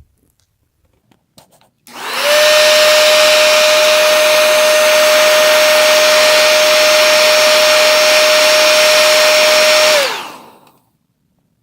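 Remington 1875-watt hair dryer switched on about two seconds in, running with a steady rush of air and a constant tone as it heats an iPad Air's front-camera frame to loosen it. It switches off near the end, the tone falling as the motor spins down.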